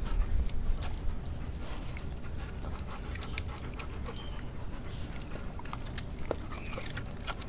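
An old dog chewing a piece of steak on a concrete path, with many small scattered clicks and smacks of teeth and jaws.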